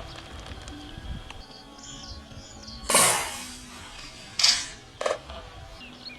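Sharp cracks of .22 PCP air rifles firing: a loud shot about three seconds in, then two more cracks close together near the end. Small birds chirp in the background.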